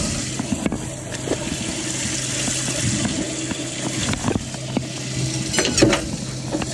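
Water pouring and splashing in a bass boat's livewell, with a steady low hum from the livewell pump and scattered splashes and knocks.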